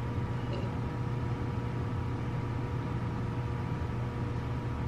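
Steady low mechanical hum with faint steady tones above it, unchanging throughout.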